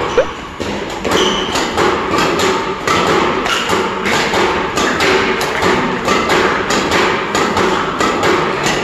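Rapid string of sharp hits, about three a second: a badminton racket striking shuttlecocks fired in quick succession by a shuttlecock launcher machine.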